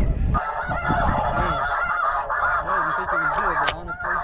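A large flock of snow geese calling all at once, a dense overlapping chorus of short, high honks. A low wind rumble cuts off abruptly under half a second in, and a few sharp clicks fall near the end.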